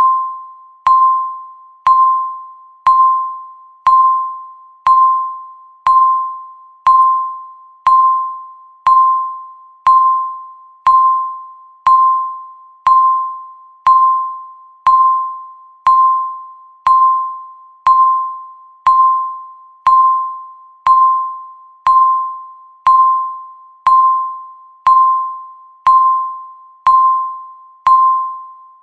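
Countdown timer beep sounding once a second: a single sharp electronic tone near 1 kHz, each fading away before the next, steady and unchanging.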